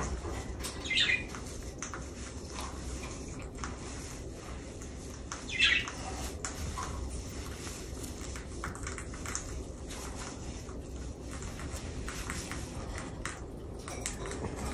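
White-bellied caique giving two short, high-pitched squawks, one about a second in and one near the middle, with faint clicks in between.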